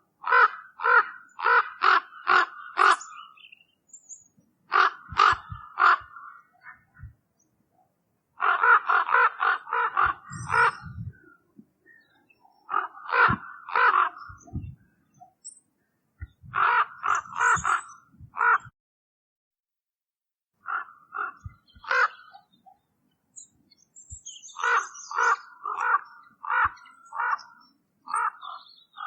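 Common raven calling: repeated short calls in bouts of several, about two a second, with short pauses between the bouts.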